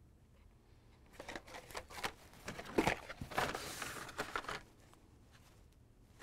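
Carded Hot Wheels cars in plastic blister packs rustling and clicking against each other as they are handled and swapped in the hands. The crinkling starts about a second in, is loudest near the middle, and dies away over the last second and a half.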